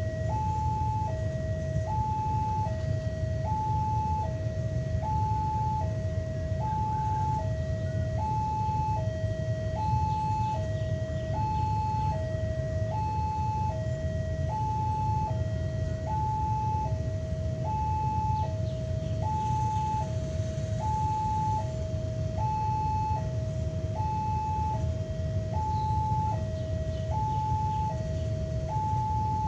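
Railway level crossing warning alarm, an electronic two-tone signal alternating steadily between a higher and a lower note, each held a little under a second, over a steady low rumble. The alarm signals that a train is approaching.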